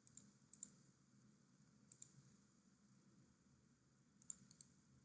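Computer mouse clicking in short groups of two or three quick clicks, four groups spread over a few seconds, against near-silent room tone.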